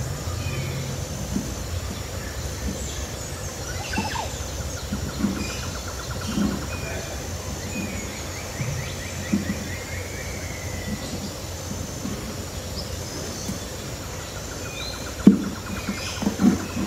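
Birds chirping, with short calls and a trill, over a steady low background rumble, with a few soft knocks, the loudest about fifteen seconds in.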